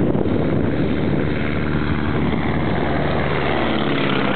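Stearman biplane's 220 hp radial engine and propeller running steadily on a low pass in a sideslip, passing right overhead near the end.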